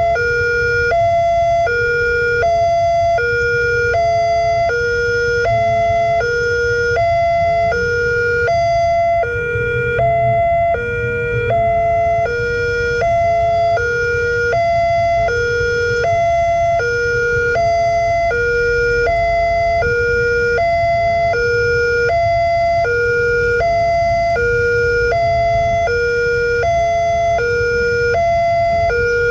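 Railway level-crossing warning siren sounding a steady high-low two-tone alarm that repeats without a break, over a low rumble.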